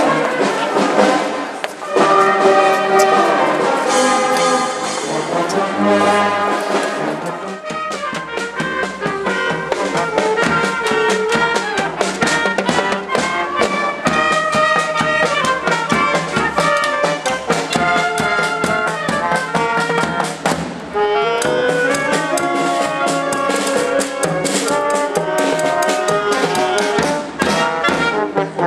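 Brass music playing a tune, with a steady beat coming in about eight seconds in.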